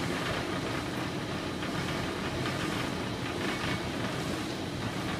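Steady low rumble of heavy machinery running, with a few faint knocks.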